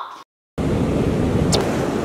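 Steady wind rumbling on the microphone, starting abruptly after a split second of silence about half a second in, with a brief high chirp about a second and a half in.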